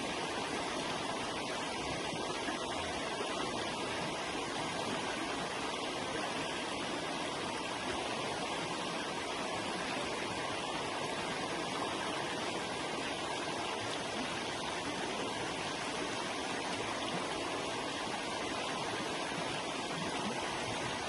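River water flowing over rocks, a steady even rushing.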